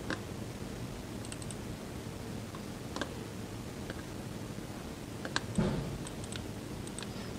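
A few scattered clicks from a laptop keyboard and mouse, with a quick group of three early on and a louder click with a soft thump past the middle, over a steady low room hum.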